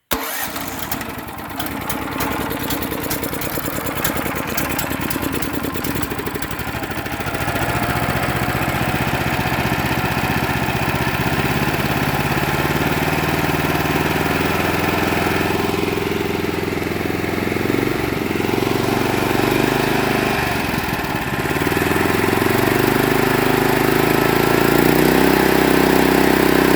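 Harbor Freight mud motor's small single-cylinder gasoline engine running, its speed stepping up about a third of the way in, dipping briefly and then climbing again toward the end.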